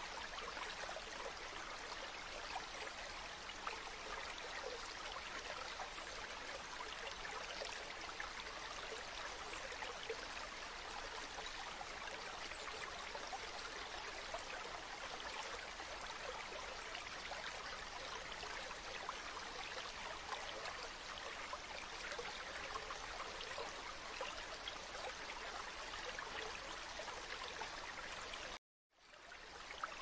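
River water flowing steadily. Near the end it cuts out to silence for a moment and fades back in.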